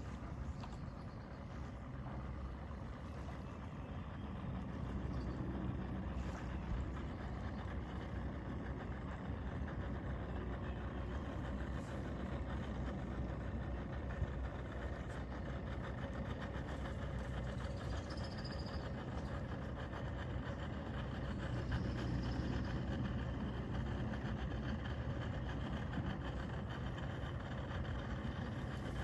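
Two-stroke outboard motor running steadily at low speed, swelling slightly now and then.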